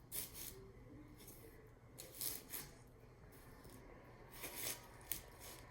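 Faint, scattered scrapes and light knocks of a kitchen knife and watermelon being handled, coming in a few short clusters.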